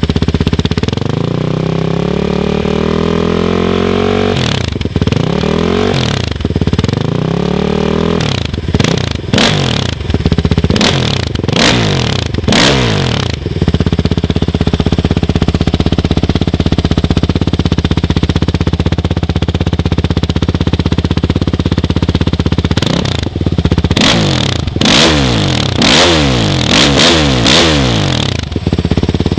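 Kawasaki KFX450R quad's single-cylinder four-stroke engine, breathing through an aftermarket Barrett exhaust, being revved. It makes one long rev-up in the first few seconds, then a run of quick throttle blips. It idles steadily for about nine seconds, then gives another run of sharp blips near the end.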